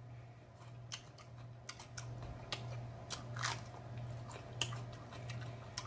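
Close-miked eating sounds: a person biting and chewing crunchy food, with irregular sharp wet clicks and crunches from the mouth.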